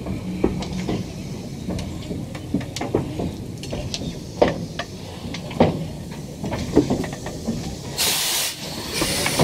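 Steam locomotive moving slowly, with irregular knocks and clanks from its running gear. Near the end come two loud bursts of steam hissing, the first lasting about half a second.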